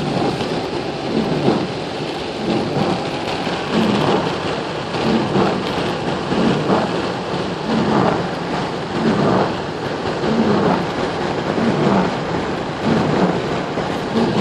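Steady rain falling as an even hiss, with short low swells that recur about every second or so.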